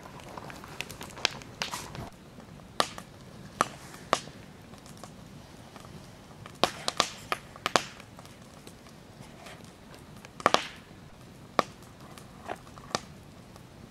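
Wood campfire crackling in a fire pit: sharp, irregular pops and snaps from the burning logs over a low steady hiss, the loudest pair of pops about ten and a half seconds in.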